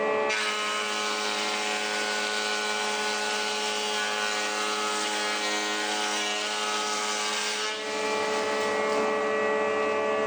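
Elektra Beckum HC 260 jointer-planer running at a steady pitch. From just after the start until about three-quarters of the way through, a board passes through the cutterhead, adding a loud, rough cutting noise over the motor hum.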